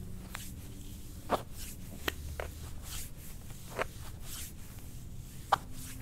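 Hands kneading and pressing the muscles of a bare lower back, heard as a few short, soft clicks and taps at irregular intervals over a faint hiss.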